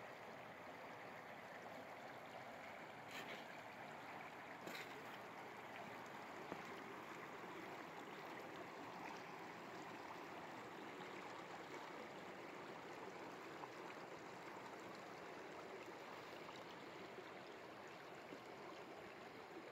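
Shallow river flowing over rocks and gravel: a steady, faint rushing hiss, with two brief faint ticks about three and five seconds in.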